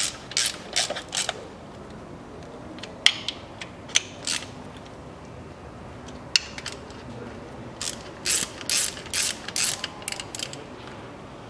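Hand socket ratchet clicking in short runs with pauses between, as the bolts of a manual gearbox oil pan are tightened down over a new gasket.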